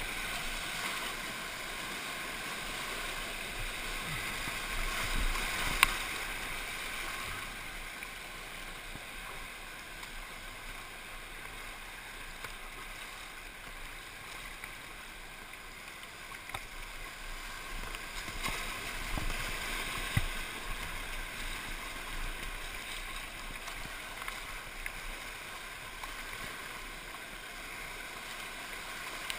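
Fast, flood-swollen whitewater rushing and churning around a kayak, a steady wash of water noise, with two sharp knocks, about six seconds in and again around twenty seconds.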